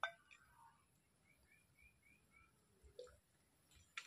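Near silence, broken by a faint bird call of five short high chirps in a row and a few soft clicks near the start and end.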